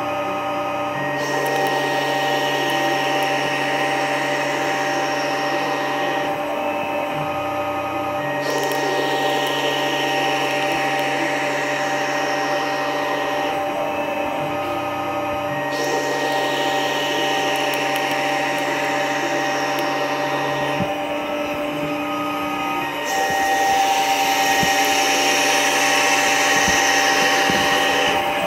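Tormach PCNC 1100 CNC mill used as a lathe: the spindle spins a chucked workpiece against a fixed high-speed-steel tool, running with a steady machine hum. The cutting noise comes and goes in four spells of about five seconds each, about two seconds apart, a little louder in the last one.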